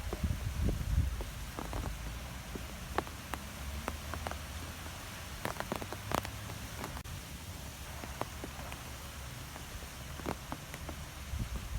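Wind blowing through trees: a steady rushing haze with scattered light ticks and a fluctuating low rumble.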